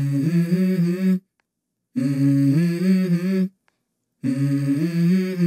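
Intro music: hummed vocal phrases stepping between a few steady notes, in three short phrases with dead-silent gaps between them.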